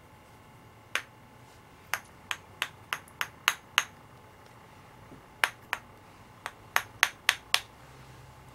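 Sharp, light metallic taps of a tool striking a paint-loaded brush to spatter specks of paint: one tap, then a quick run of about seven, a short pause, then about seven more.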